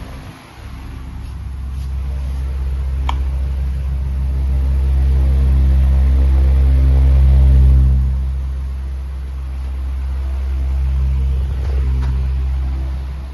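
Ventisol 50 cm pedestal fan running: a steady low hum and rumble of air on the microphone that swells louder over several seconds, eases off and builds again. A single sharp click about three seconds in.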